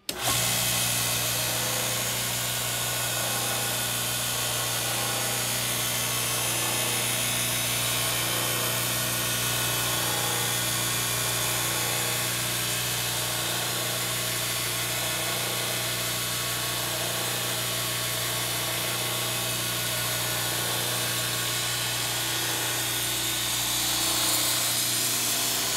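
Shop-built 2x72 belt grinder with a 1 hp, 1740 RPM electric motor, switched on and starting at once, then running free with no workpiece. It holds a steady motor hum under a broad hiss.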